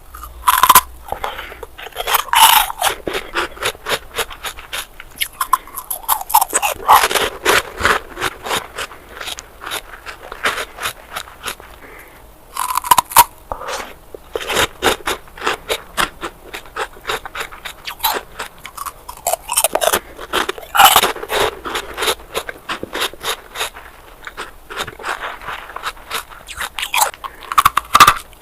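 Close-up biting and chewing of frozen ice bars: loud, sharp crunches as chunks of ice snap off, followed by rapid crackling as the ice is chewed, with a fresh bite every few seconds.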